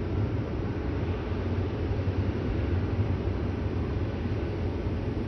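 Airbus A321neo's Pratt & Whitney PW1100G geared turbofans at taxi idle, heard as a steady low rumble.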